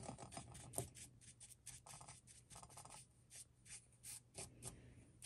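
Paintbrush dabbing and scrubbing paint onto a rough, gritty-textured figure: faint, irregular scratchy strokes, several a second at first, then fewer.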